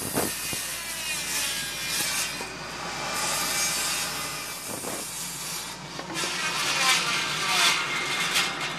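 Sidewinder circular saw crosscutting 2x2 redwood: the motor's whine together with the noise of the blade cutting through the wood, its loudness rising and falling as the cut goes.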